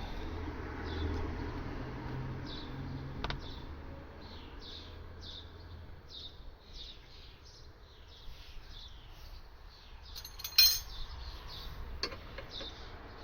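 A bird calling over and over in short high chirps, about two a second, over a low rumble during the first few seconds. A loud sharp clack about ten and a half seconds in, with lighter clicks around three and twelve seconds.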